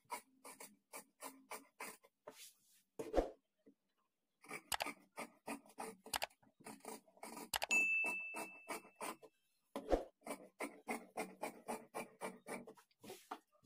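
Tailoring scissors snipping through blouse fabric: runs of crisp cuts, about three a second, with two short breaks. About eight seconds in, a single high ding rings for about a second.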